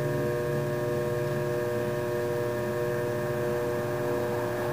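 Electric potter's wheel running at a steady speed, its motor giving off an even, unchanging hum.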